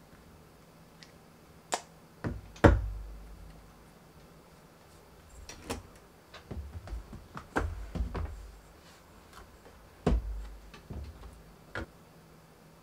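Clicks, knocks and dull thumps of a laptop and other things being handled on a wooden desk, in scattered groups, the loudest knock about two and a half seconds in.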